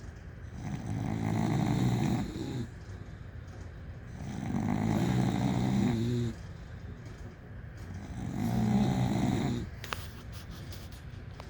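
Sleeping bulldogs snoring loudly: three long snores about three and a half seconds apart, each lasting about two seconds, with quieter breathing between them.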